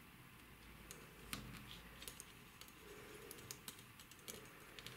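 Faint, scattered clicks of knitting needles tapping against each other as stitches are knitted.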